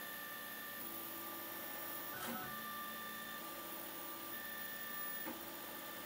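Stepper motors of a homemade 3D printer whining in steady tones that switch pitch every second or so as the print head moves through a print. A brief sweep about two seconds in and a short click near the end.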